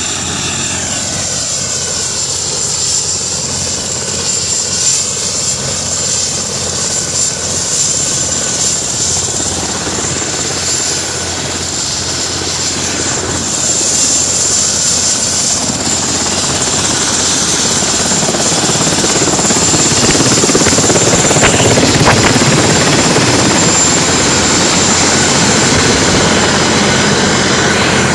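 Military helicopter running, its noise growing gradually louder.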